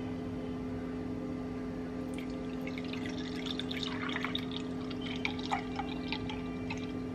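Fresh juice poured from a plastic juicer jug into a glass mug, splashing and trickling into the glass for a few seconds from about two seconds in, over a steady low hum.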